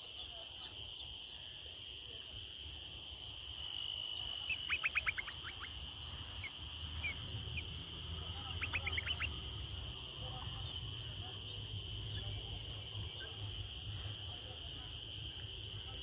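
Small birds chirping over a steady high-pitched drone, with two quick runs of rapid repeated chirps about four and nine seconds in, likely begging calls from the gaping nestlings. A single sharp click near the end.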